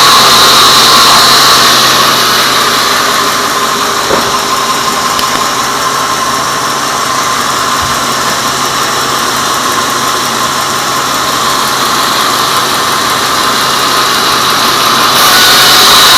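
Band sawmill running with a loud, steady mechanical noise and a high whine. The noise drops to a quieter, duller level about two seconds in and rises back to full loudness near the end.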